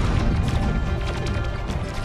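Film battle soundtrack: a dramatic music score over a heavy low rumble, with repeated crashing impact and explosion effects as a starship is hit.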